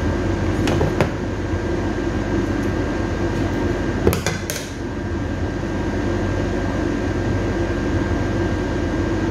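Steady machine hum with a faint constant whine, like a kitchen appliance or air conditioner running. A couple of light clicks come near the start, and a brief clatter of clicks about four seconds in.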